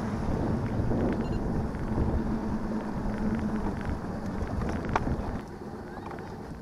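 Wind buffeting the microphone of a moving bass boat, over a low steady hum from the boat's motor and water against the hull. The wind noise eases about five seconds in.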